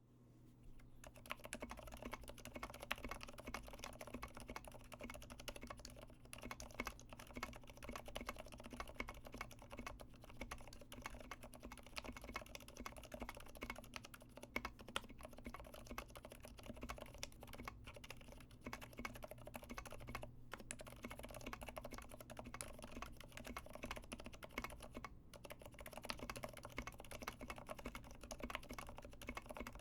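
Fast, steady typing on a Leopold FC660M mechanical keyboard with lubed Cherry MX Silent Red linear switches: quiet, dampened keystrokes, the silicone silencers softening the bottom-out. The typing starts about a second in, with a few brief pauses.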